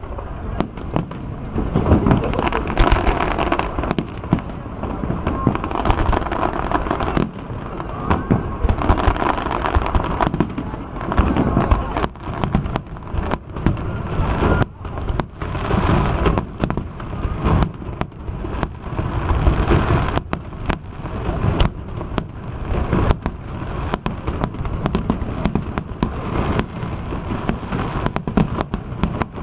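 Fireworks display going off: many sharp bangs of bursting shells, scattered at first and then in rapid succession from about twelve seconds in, over a steady rumble.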